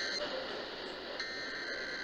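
Emergency Alert System SAME header: harsh, warbling digital data tones over radio hiss. One burst cuts off just after the start and the next begins a little over a second in. This coded header opens the coordinated monthly EAS test, ahead of the two-tone attention signal.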